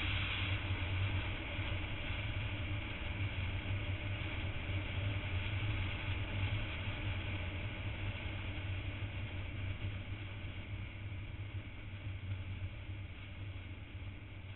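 Motorcycle engine running steadily under way, a low drone mixed with wind and road rush, fading gradually toward the end.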